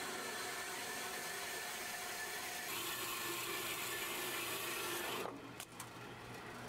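Metal-cutting band saw running, its blade cutting into the side of a cast iron anvil: a steady grinding hum with a few held tones. About five seconds in it drops sharply to a quieter hum, with a couple of light clicks.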